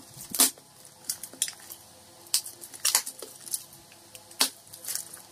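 Plastic bubble-wrap packaging crinkling in short, uneven crackles as it is handled and pulled off a box.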